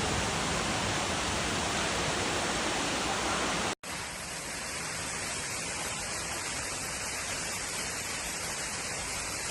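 Heavy rain pouring down as a dense, steady hiss. About four seconds in it cuts off abruptly and a second, slightly quieter stretch of downpour follows.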